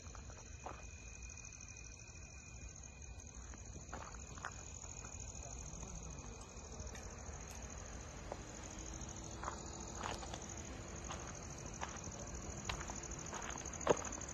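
Crickets chirping in a steady, high, pulsing trill, with a second insect tone in the first half. Occasional footsteps and short clicks, and one sharp knock near the end.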